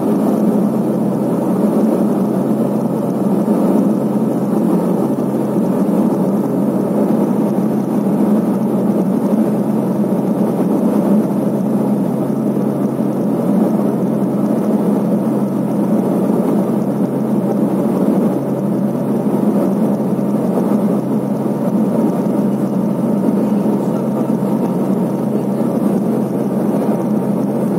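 Steady cabin drone of a Let L-410 UVP-E20's twin GE H80 turboprop engines and spinning propellers on approach: an even low hum from the propellers under a broad rushing noise, unchanging throughout.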